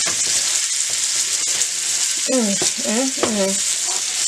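Steady sizzle of a pork loin searing in a hot pan, with a wooden spoon stirring and scraping thick mashed potatoes in a pot. A voice is heard briefly about halfway through.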